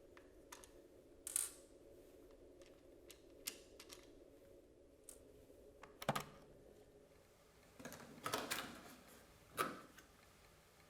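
Quiet handling of a Dyson V8 stick vacuum's plastic body and battery pack: scattered light clicks and knocks, a longer scrape a little past the middle, and a sharp knock near the end.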